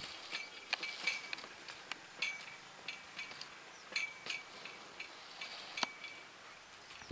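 Small metal bells on working oxen jingling and clinking irregularly as the animals move. There are about a dozen light clinks, a few with a short ringing tail.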